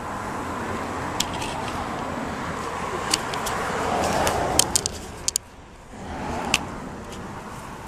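Steady outdoor background noise with scattered sharp clicks and rustles from the camera being handled while a cat brushes against it. The sound goes muffled for about half a second about five and a half seconds in, as the cat's fur covers the camera.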